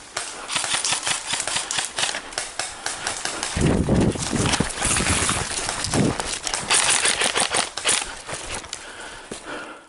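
Footsteps crunching through forest undergrowth, with twigs and branches rustling and snapping in quick irregular clicks; louder dull rubbing thumps come about four and six seconds in.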